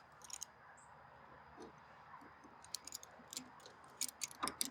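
Faint, scattered light clicks and taps, sparse at first and coming more often from about three seconds in.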